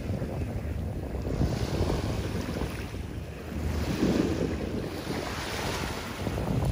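Small waves breaking and washing up a coarse coral-sand beach, with wind rumbling on the microphone; a wave breaks and washes in about four seconds in.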